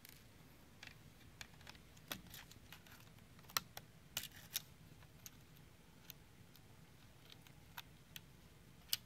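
Small scattered clicks and taps of a precision screwdriver and fingers working the tiny screws that hold a laptop's wireless card to the plastic chassis. A few clicks midway and one near the end are louder than the rest.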